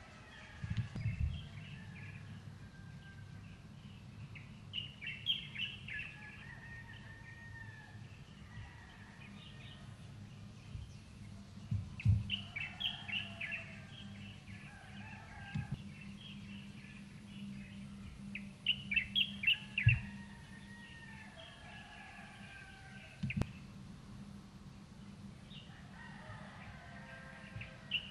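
A songbird sings in repeated bouts of quick, high chirping phrases, one about every six to seven seconds. Beneath it runs a low steady hum, with a few dull thumps.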